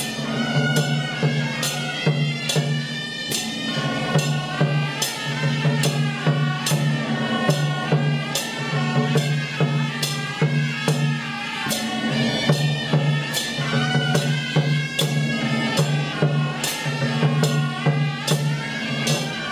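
Taiwanese temple-procession 開路鼓 (road-opening drum) troupe playing: a large drum, brass hand gongs and cymbals struck in a steady beat, with a shrill suona reed melody wavering over the top.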